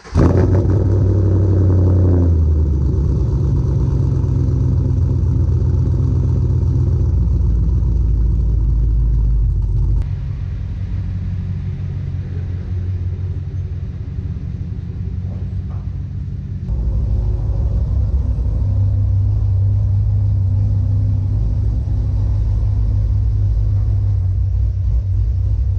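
Cammed 6.2-litre V8 of a 2010 Chevrolet Camaro SS running with a deep, steady rumble, in several joined clips that jump in level and tone about 10 and 17 seconds in.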